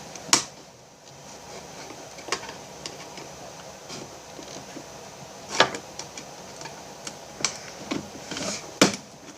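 Sporadic clicks and taps of small parts and tools being handled while a device is taken apart, with a handful of sharper knocks, the loudest about half a second in, near the middle and near the end.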